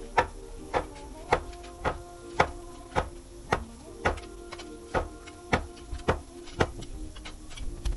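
Hammer blows, evenly spaced at about two a second, with a steady low hum of tones underneath.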